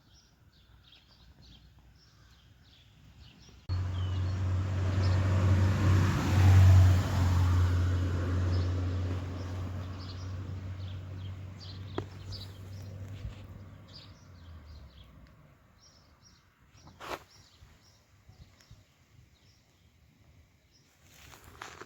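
A motor vehicle's engine running close by: a loud, steady low hum that starts suddenly a few seconds in and fades away over about ten seconds. Small birds chirp throughout.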